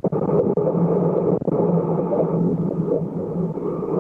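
Hurricane Ian's hurricane-force wind blowing in a dense, steady rush on the microphone, with a low droning tone under it, briefly cutting out a couple of times.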